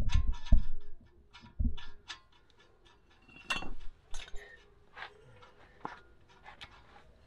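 Irregular metallic clinks and taps of tools and brake parts being handled while fitting new brake pads, with a few dull knocks in the first two seconds.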